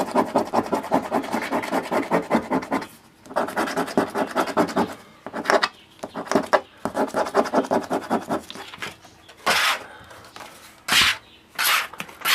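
A lotto ticket scratcher scraping the coating off a scratch-off lottery ticket in rapid back-and-forth strokes, in three runs with short pauses between them. A few short, louder swishes follow near the end.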